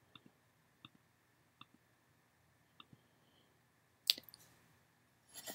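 Faint clicks: a few small, irregular ticks in the first three seconds, then a sharper, louder click about four seconds in and a few more clicks near the end.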